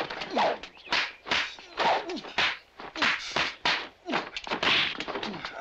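Staff-fight sound effects: a rapid run of about a dozen swishes and wooden thwacks, roughly two a second, several with short grunts from the fighters.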